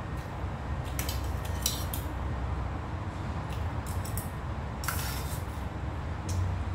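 Metal spoon scraping and clinking against a small stainless-steel bowl in several short strokes while food is scooped, over a steady low hum.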